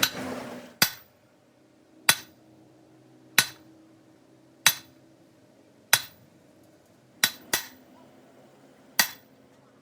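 Hammer blows on metal, struck at a slow even pace of about one every second and a quarter, eight in all, with a quick double strike a little past the middle. Each blow rings briefly.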